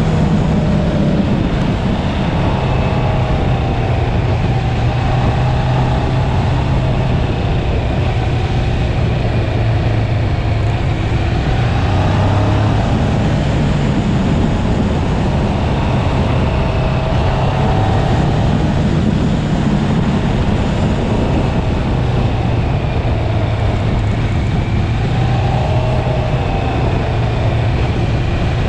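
650cc sportbike engine running at road speed, its pitch rising and falling as the throttle opens and closes, under heavy wind noise on the microphone.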